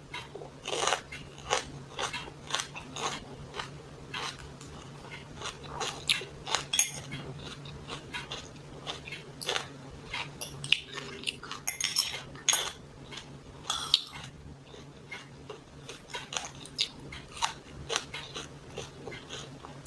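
Eating sounds: a fork and spoon clicking against a dish, with chewing and crunching of pancit canton noodles and vegetables, as many short irregular clicks.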